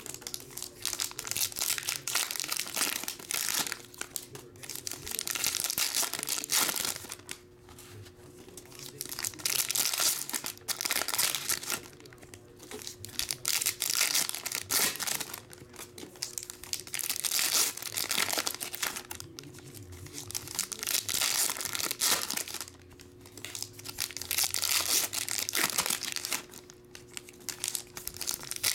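Foil Panini Prizm soccer card packs being torn open and their wrappers crinkled by hand, in repeated bursts of crinkling every few seconds with quieter gaps between.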